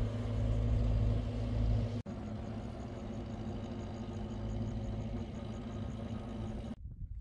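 Motor vehicle engine running steadily with road noise. It breaks off abruptly about two seconds in to a second steady stretch of engine noise, then drops suddenly to near quiet just before the end.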